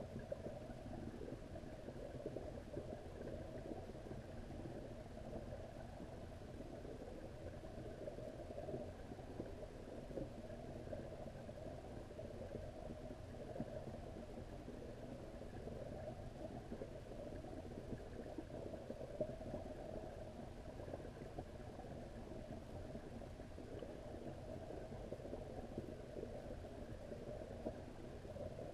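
Steady, muffled low rumble of water, recorded underwater in a garden koi pond, with a faint constant hum beneath it.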